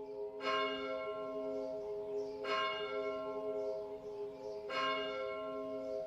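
A bell struck three times, about two seconds apart, each strike ringing on with steady overlapping tones into the next.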